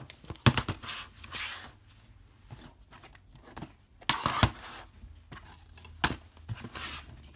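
Plastic DVD cases being picked up, slid and set down in stacks on a wooden table: a few sharp clacks and scuffs, with the loudest clatter of knocks about four seconds in.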